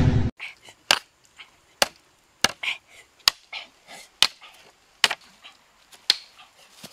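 About seven sharp chopping strikes, a blade cutting into bamboo against a stone, irregularly spaced roughly one a second. The tail of a loud intro sound ends just at the start.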